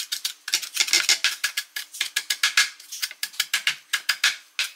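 Kitchen knife chopping fresh cilantro on a cutting board: quick runs of sharp knocks, about five a second, with short pauses between the runs.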